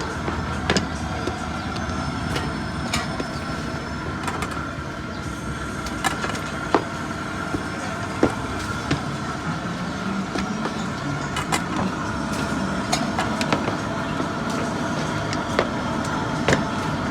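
Irregular sharp clicks and knocks of a knife and utensils working patongko dough at a street-food stall, over a steady hum of background noise.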